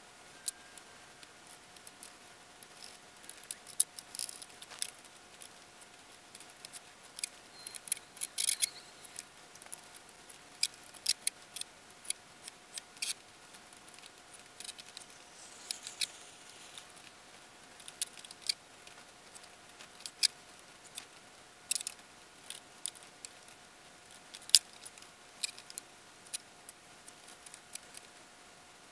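Scattered sharp clicks and light taps of wooden boards being handled and set on a wooden frame, irregular, a few each second, with a handful of louder knocks. A faint steady whine sits underneath.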